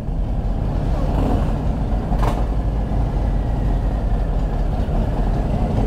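Steady low engine rumble, with a single short clank about two seconds in.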